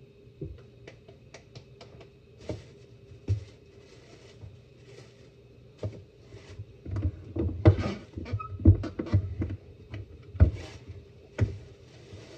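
Irregular knocks, taps and light clatter of hands at work making corn tortillas, with the dough handled and pressed and the tortillas turned on the griddle. The knocks bunch together and are loudest in the middle, over a steady faint hum.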